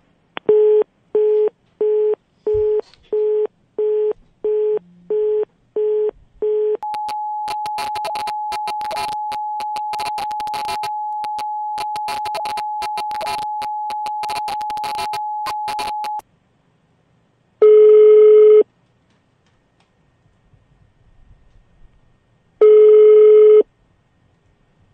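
Telephone line during a redial: about ten short keypad beeps as a number is dialled, then a steady line tone crackling with clicks for about nine seconds. Then two one-second ringback tones come five seconds apart, with the call ringing unanswered.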